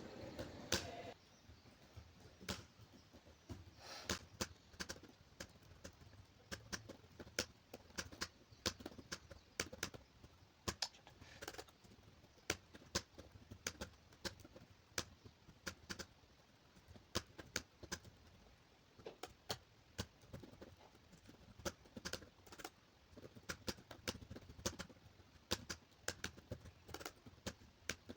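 Typing on a laptop keyboard during a timed typing test: a quick, irregular run of faint key clicks.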